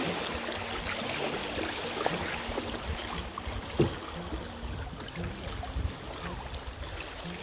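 Fast, shallow river water rushing and splashing around a canoe running a riffle, with wind buffeting the microphone. A few short knocks, the loudest a little under four seconds in.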